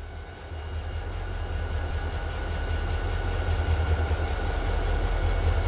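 CSX diesel-electric freight locomotives running slowly past, a deep engine rumble with a faint steady whine over it, growing louder throughout.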